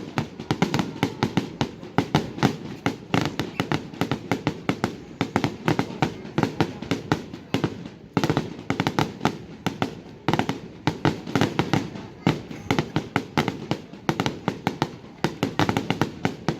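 Aerial fireworks going off in quick succession: a continuous string of sharp bangs and crackles, several a second, with no pause.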